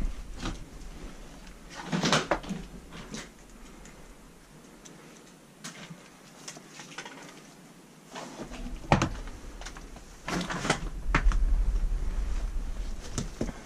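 A person moving through a debris-strewn room: scattered knocks, scuffs and rustles. Louder knocks come about two seconds in and about nine seconds in, and a busier stretch of scuffing and handling noise comes near the end.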